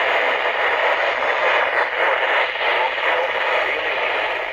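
Steady radio static: an even hiss from a receiver with no clear voice or tone coming through.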